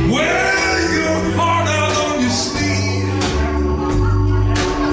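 A live rock band playing a slow song on acoustic guitar, electric bass and drums, with a man's voice singing near the start and several cymbal strikes in the second half.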